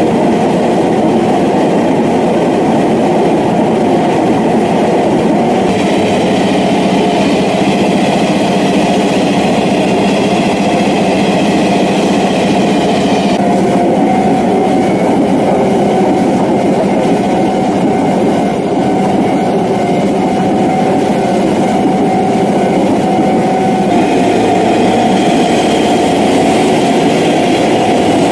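A train passing over a railway level crossing: a loud, steady rumble of wheels running on the rails. A thin high whine rises over it for several seconds in the middle.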